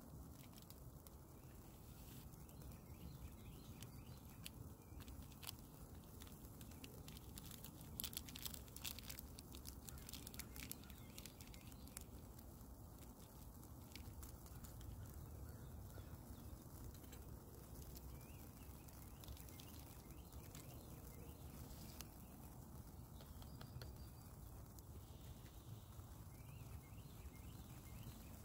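Quiet outdoor ambience with a steady low rumble. About eight seconds in comes a short cluster of crackling clicks, a foil instant-coffee stick packet being handled and torn open.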